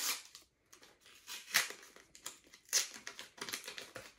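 Trading card pack wrapper crinkling and tearing as it is ripped open and the cards are pulled out, in several short rustling bursts.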